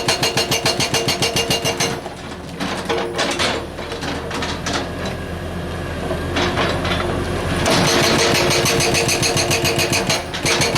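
Hydraulic breaker on a 330 excavator hammering rock with rapid, even blows that stop about two seconds in. The excavator's diesel engine then runs on with scattered knocks and scraping, and the rapid hammering starts again near the end.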